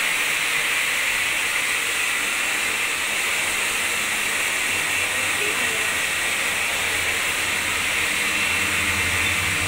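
Handheld hair dryer running steadily, a loud even hiss of blown air. A low hum joins in near the end.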